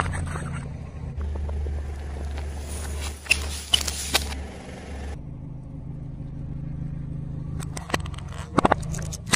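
Car engine idling with a steady low hum as a tyre rolls slowly over small objects and crushes them. Sharp pops come about three to four seconds in as small plastic drink bottles burst and squirt liquid, and a cluster of sharp cracks follows near the end.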